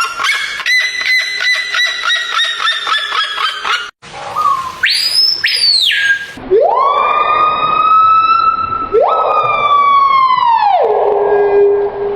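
A run of different animal calls: first a fast series of repeated pulsed calls, about four a second, then a short high squeal, then two long siren-like wails that rise at the start and fall away at the end.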